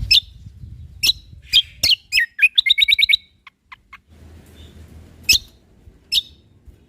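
Cucak kombo (kecial kombok) singing: sharp high chirps, then a quick trill of about six notes, a few lower short notes, and two more single chirps near the end.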